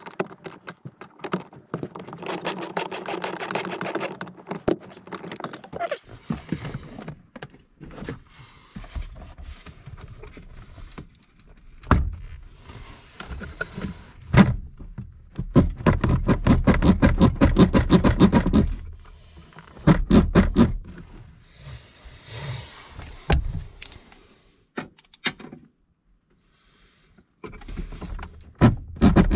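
Hand tools working fasteners under a truck's dashboard: two long runs of rapid, even clicking like a socket ratchet being worked, one near the start and one about halfway through. Scattered knocks and clinks of metal tools fall between them.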